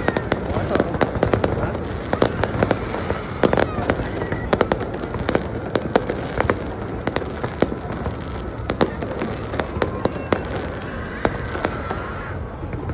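Fireworks display: a rapid, continuous string of sharp bangs and crackles, several reports a second.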